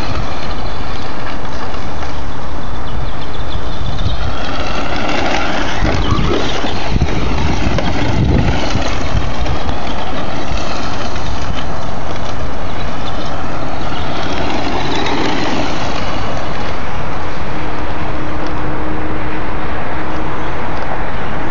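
Radio-controlled short-course truck driving over gravel, its motor rising and falling in pitch with the throttle, under a loud, steady rushing noise.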